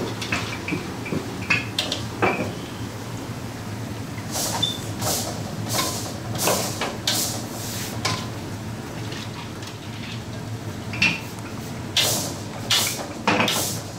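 Medu vada deep-frying in a kadai of hot oil over a steady low kitchen hum, with repeated sharp metallic clinks and scrapes of a slotted spoon against the kadai and a steel colander as the vadas are lifted out. The clinks come in two clusters, in the middle and near the end.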